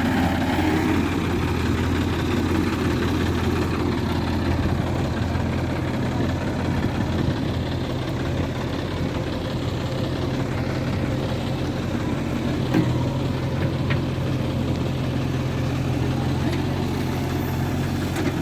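Diesel engine running steadily, an even hum with no revving.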